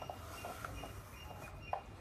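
Faint rustle of hair sliding through a flat-iron hair straightener, with a few soft handling ticks, one a little louder near the end, and faint short high chirps recurring in the background.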